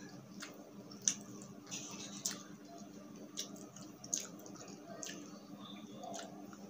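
Close-miked eating sounds: wet chewing with sharp lip smacks and mouth clicks about once or twice a second.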